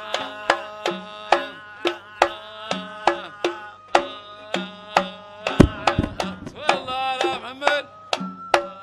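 Arabic wedding band music: hand drums keep a steady beat of two to three strokes a second under a held melody line. A heavy low drum hit lands about halfway through, followed by a wavering, ornamented run in the melody.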